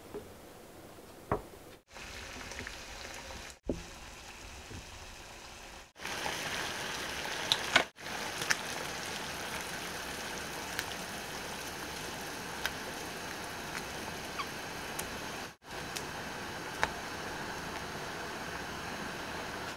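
Pot of water at a boil, bubbling with a steady hiss, with scattered clicks and plops as potato gnocchi are dropped in. Before that, a few quiet taps of a fork on a wooden cutting board while the gnocchi are shaped.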